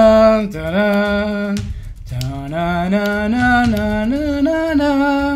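A man humming a slow melody in two phrases of held notes, each phrase climbing step by step in pitch.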